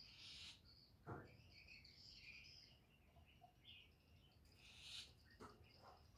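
Faint chirping of small birds, high and scattered, with a couple of soft knocks.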